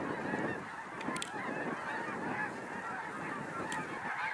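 A huge flock of snow geese calling overhead: a dense, unbroken chorus of many overlapping honks and yelps.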